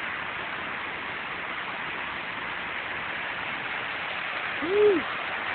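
Steady rushing of a small waterfall. About five seconds in, a person's short rising-and-falling 'ooh' is heard over it.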